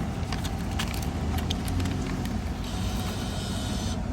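Low, steady rumble of road traffic, with a few faint clicks early on and a short hiss starting about two and a half seconds in.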